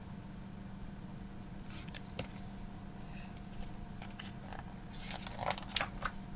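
Pages of a picture book being turned and handled: scattered soft paper rustles and small clicks that start a couple of seconds in and grow busier near the end, over a low steady hum.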